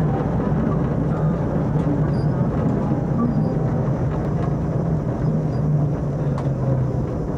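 Tram running along the track, heard from inside the driver's cab: a steady low hum with a rumble, and no sudden events.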